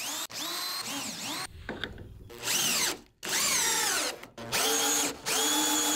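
Cordless drill-driver turning screws in wooden cladding boards, run in several short trigger bursts, the motor's pitch rising and falling with each.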